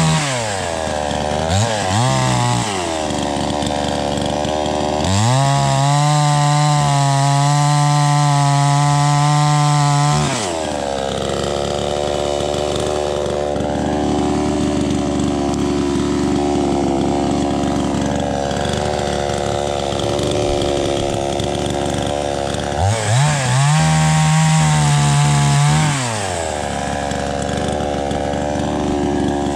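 Two-stroke chainsaw with a 20-inch bar cutting tree limbs. It revs to full throttle three times, briefly about two seconds in, then for about five seconds, then for about three seconds near the end, and runs at a lower, uneven speed in between.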